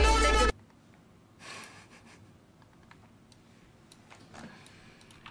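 A song with singing stops abruptly about half a second in. After it come faint, scattered computer keyboard and mouse clicks.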